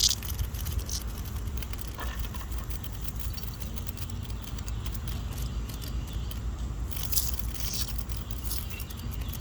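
A cicada's distress buzz in short bursts, once at the start and again about seven seconds in, while it is held by a cicada killer wasp. Faint crackling and scraping runs under it, over a steady low rumble.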